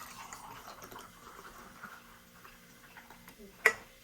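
Eating utensils handling noodles in a bowl: a soft scraping rustle, then one sharp click against the dish near the end.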